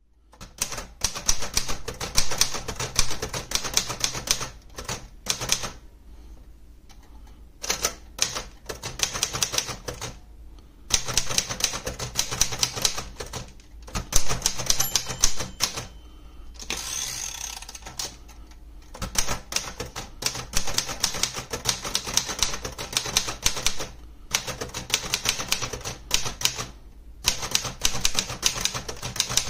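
Typing on a 1951 Royal Quiet DeLuxe manual portable typewriter: quick runs of key and typebar strikes in bursts with short pauses between words. About halfway through, the carriage is returned to start a new line.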